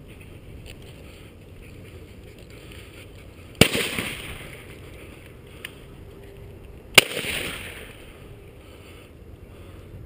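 Two shotgun shots about three and a half seconds apart, each followed by a short echoing tail.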